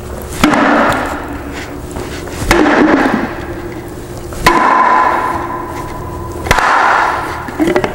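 Rubber mallet striking a plastic seal installer, driving the double O-ring seal retainer into a Unibloc PD 602 pump's stainless housing: four blows about two seconds apart, each ringing on for about a second.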